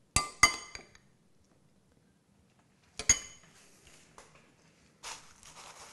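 A metal spoon clinks against the dishes as cocktail sauce is spooned out: two quick ringing clinks right at the start and another about three seconds in. A short scraping rustle follows near the end.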